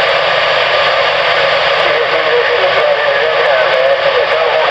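CB radio receiver static: a steady loud hiss through the radio's speaker, with a faint wavering tone about three seconds in.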